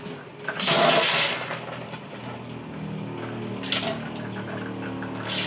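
Freshwater pressure pump on a sailboat running with a steady hum as the water system pressurizes, while water comes out of the galley faucet in short gushes, about a second in and again near four seconds in: running water restored once the manifold was switched to the tank that holds water.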